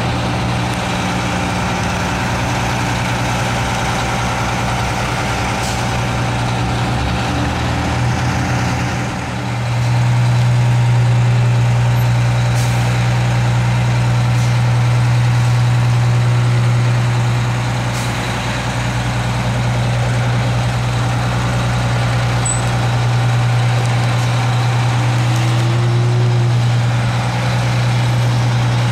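TMC RTS transit bus's Detroit Diesel 6V92TA two-stroke V6 diesel idling steadily with a constant low drone, louder from about ten seconds in.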